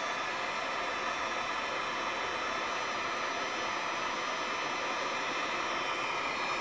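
Electric heat gun blowing hot air, shrinking heat-shrink tubing over a soldered wire splice: a steady rush of air with a faint motor whine.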